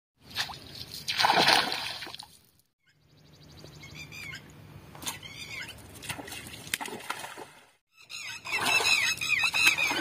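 Water splashing, loudest in the first two seconds. After two short dead breaks it gives way to quieter water noise with scattered high chirps, and near the end to a rapid run of chirps.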